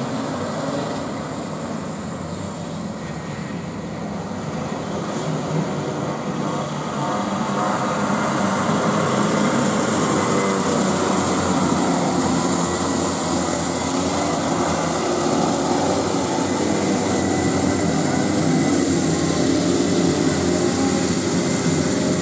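A pack of racing go-kart engines running hard together, growing louder about eight seconds in as the field comes closer.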